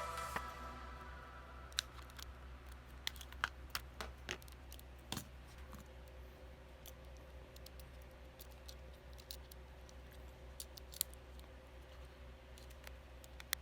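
Faint, irregular clicks and taps of buttons being pressed and small plastic parts being handled, a dozen or so sharp clicks spread out with gaps of a second or more between them.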